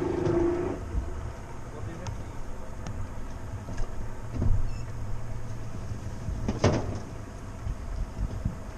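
A steady low hum aboard a bass boat, with heavy footsteps thumping on its deck, the loudest about four and a half and six and a half seconds in, as someone walks forward to the bow. A short voice is heard at the very start.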